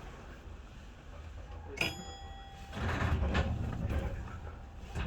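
Tokyo Monorail 1000 series train heard from on board: a low rumble, with a single short bell-like ding about two seconds in and a louder rumble swelling up about a second later.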